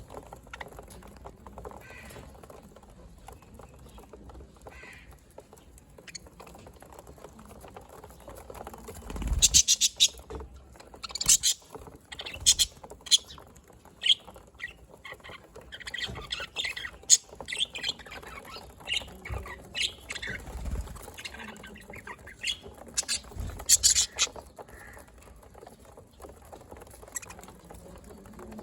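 Flock of budgerigars chirping and squawking together. Sparse and faint at first, the calls become a busy run of loud, sharp, high chirps after about nine seconds and thin out again near the end. Two low thumps are mixed in.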